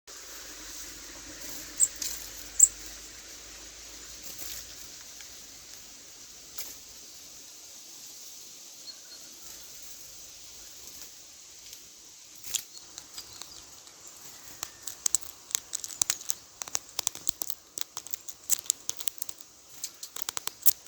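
A tit pecking and tapping at the camera right at the microphone: a few isolated sharp clicks, then from about twelve seconds in a run of rapid, irregular taps and scratches.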